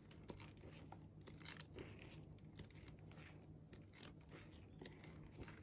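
Faint crinkling and rustling of glossy pages in a spiral-bound book being turned, with many small scattered clicks and crackles.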